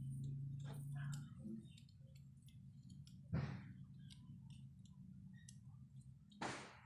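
Scattered light clicks and two brief swishes of small parts being handled, over a low steady hum that drops off about a second in.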